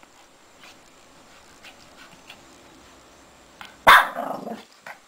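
Shih Tzu puppy gives one sharp bark about four seconds in, running straight into a short low growl, after a stretch of faint scratching as it digs in its plush bed.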